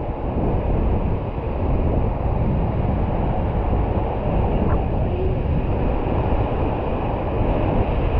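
Steady, deep rush of river water as the raft runs down the river, with wind buffeting the microphone.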